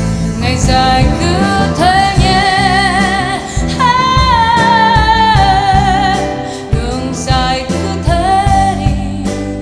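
A woman singing a Vietnamese song live, with long held notes and wide vibrato, accompanied by acoustic guitar and piano.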